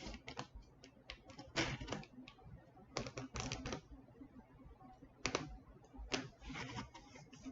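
Scissors cutting open a shipping package: irregular clicks and scrapes of the blades and the packaging, coming in several short runs with pauses between.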